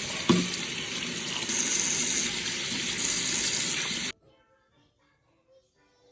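Tap water running hard into a sink, then shut off abruptly about four seconds in. A short knock sounds just after it begins.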